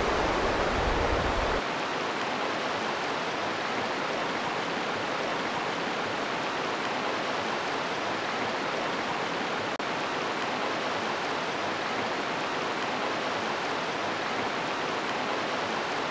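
Swollen, fast-running river rushing steadily over rocks and shallows, with a low rumble that stops about a second and a half in.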